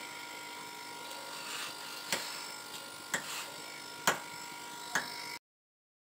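Hands pressing pizza dough into a foil-lined pizza tray: a few short taps and crinkles about a second apart over a faint steady electrical hum. The sound cuts out abruptly near the end.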